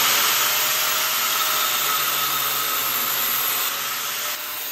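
Angle grinder with a cut-off wheel running at full speed, a steady hiss with a faint whine; the wheel spins free, not yet cutting into the steel tube.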